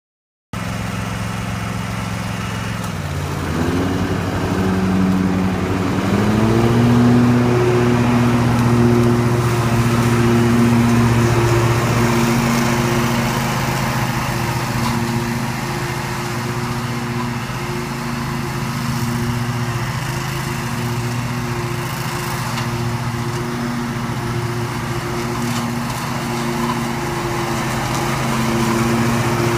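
Grillo Climber MD22 ride-on mower's 22 hp engine running as it mows a lawn. About three seconds in its pitch dips and then climbs, settling by about seven seconds into a steady high-speed run.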